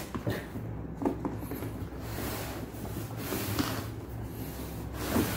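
Cardboard box being handled: cardboard rubbing and sliding under the hands, with a few soft knocks.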